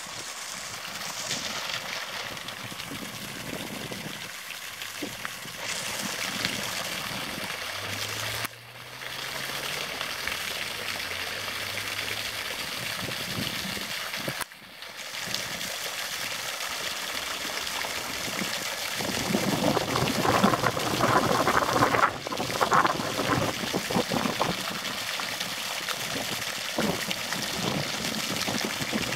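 Shallow creek water trickling and running over a stony bed, a steady rushing sound that grows louder and splashier about two-thirds of the way through.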